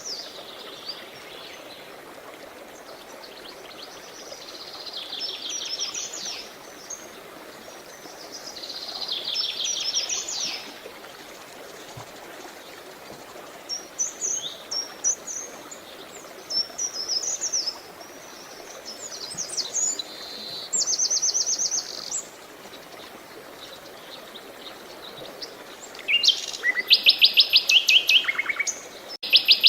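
Songbirds singing in repeated trilled phrases and quick chirps, with the loudest run of rapid trills near the end. Underneath is a faint steady wash of running water.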